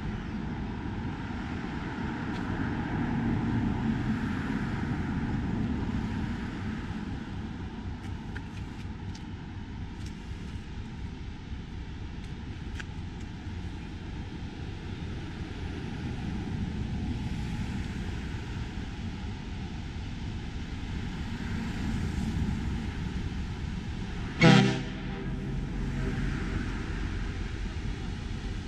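A ship's horn, most likely the Hurtigruten ship MS Nordkapp's, gives one short blast of about half a second near the end, over a steady rushing noise.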